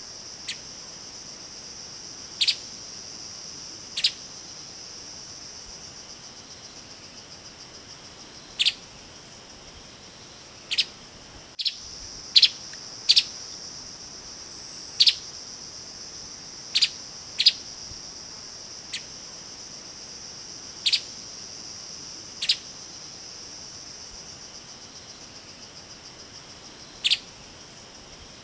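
Streaked spiderhunter giving short, sharp single calls at irregular intervals, about fifteen in all, some in quick pairs, over a steady high-pitched insect drone.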